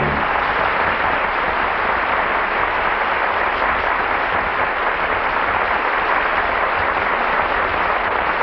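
Studio audience applauding steadily at the close of a sung number, heard on an old radio broadcast recording with its top end cut off.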